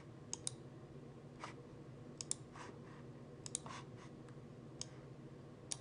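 Computer mouse button clicks, several in quick pairs, scattered at irregular intervals over a faint steady low hum.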